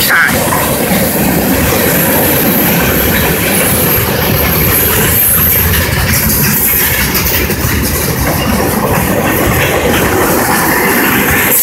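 Freight train cars rolling past at close range, a mix of boxcars, tank cars and covered hoppers, their steel wheels running on the rails. The sound is loud and steady.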